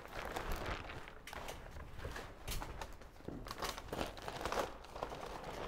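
Plastic vapour-barrier membrane crinkling and rustling as it is handled, in a string of irregular short crackles.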